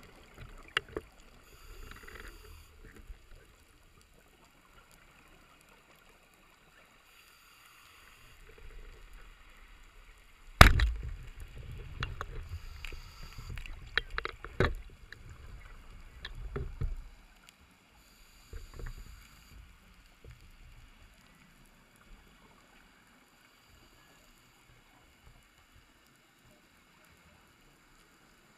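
Muffled underwater knocks and low rumbling heard through a waterproof camera housing: one sharp, loud knock about a third of the way in, followed by several seconds of rumbling and clicking, then it goes quiet for the last third.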